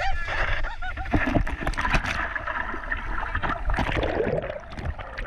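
Sea water rushing and splashing in shallow surf, with many sharp clicks and knocks close to the action camera's microphone. A man's voice laughs in short repeated bursts during the first second.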